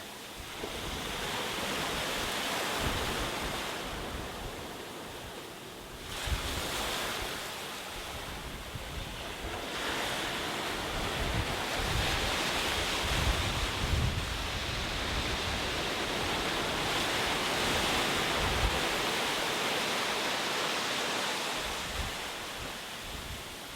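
Ocean waves breaking and washing up on a shore, the surf swelling and ebbing in slow surges: a sharp rise about six seconds in and another about ten seconds in, holding strong before easing off near the end.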